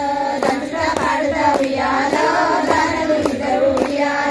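A Bathukamma song with a woman's singing voice carrying a wavering melody, over steady rhythmic hand clapping about twice a second.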